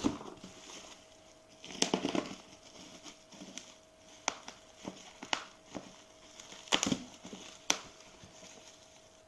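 Black plastic parcel wrapping and packing tape being cut with a knife and pulled apart by hand: crinkling, with about half a dozen sharp snaps and crackles spread through.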